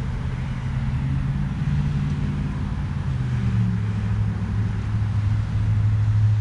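A motor engine running, a low hum that steps down in pitch a couple of times and then holds steady, over a low rumble.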